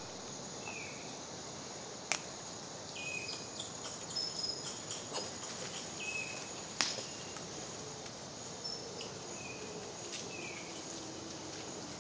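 Tropical forest ambience: a steady high-pitched insect drone, with several short high chirps and a few sharp snaps or clicks, the loudest about two seconds and seven seconds in.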